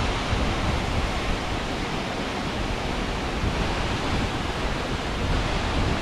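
Steady rushing of the Peričnik waterfall, with wind buffeting the microphone.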